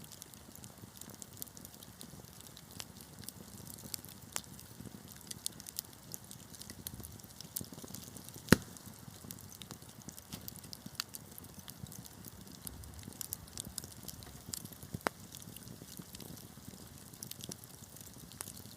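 Wood fire crackling: a soft steady hiss of burning logs with scattered sharp pops and snaps, one loud pop about halfway through.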